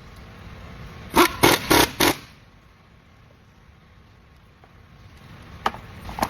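Four short, loud bursts from a shop tool, about a third of a second apart, then two sharp clicks near the end.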